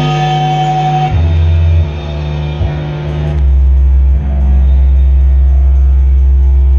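Live band playing heavily fuzzed electric guitar and bass in slow, long held low notes, with no drums. A deep note comes in about a second in, and an even lower, louder one about three and a half seconds in that is held.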